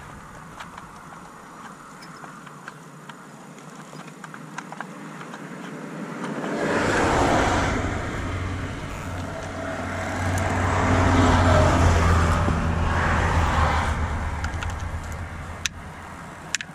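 Road traffic passing close by: engine and tyre noise swells up twice, about seven and twelve seconds in, then fades away. Light metallic clicks of hand tools come through the quieter stretches.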